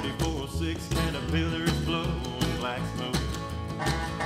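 Country honky-tonk band playing an instrumental break, with a sliding lead line over a steady bass and drum beat.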